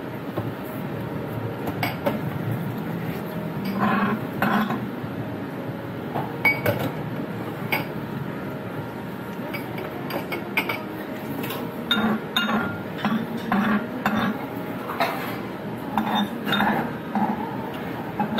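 A spoon clinking against a bowl now and then while someone eats curry dipping noodles, with small eating noises between.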